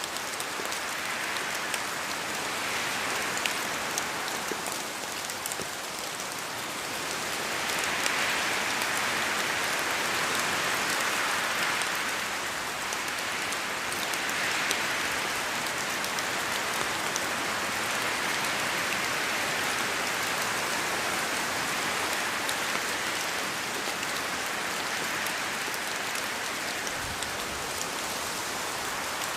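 Steady rain falling, a dense hiss scattered with sharper drop ticks, swelling louder for a few seconds about a quarter of the way in.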